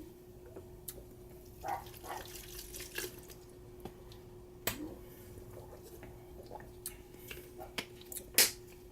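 A person drinking a mixed drink: intermittent sips, swallows and small liquid noises with scattered short clicks, the sharpest near the end, over a faint steady hum.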